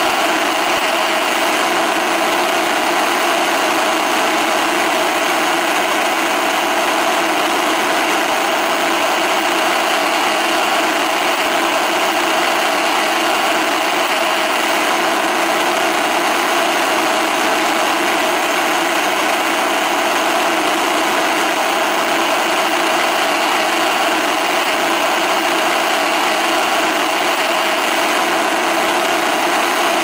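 Television static: a steady, unbroken hiss of white-noise snow with little bass.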